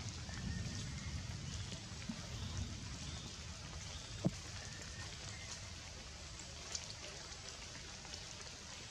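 Steady rain falling on forest leaves, with single drops striking close by, one sharply about four seconds in. A low rumble fades away over the first few seconds.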